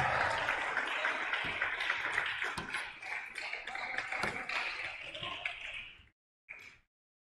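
Table tennis rally: the ball clicks sharply again and again off bats and table, over a steady background hiss. The sound cuts off abruptly about six seconds in.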